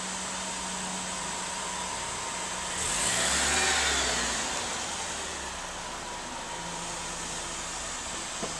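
A car passes along the street, building to its loudest about three seconds in and fading away by about five seconds, its pitch falling as it goes by. Under it runs a steady low hum of street noise.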